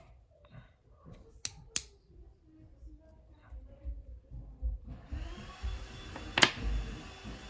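Small neodymium disc magnets clicking sharply as they snap together: two clicks about a third of a second apart a second and a half in, and a louder one near the end. Soft handling rustle lies between the clicks, and a steady hiss comes in for the last couple of seconds.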